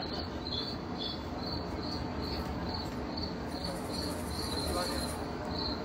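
An insect chirping steadily, short high chirps about twice a second, over a steady low background din.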